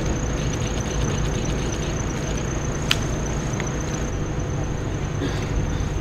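Steady low rumble of background noise with a thin high whine over it. Two sharp clicks stand out in the middle, the second fainter, a little under a second after the first.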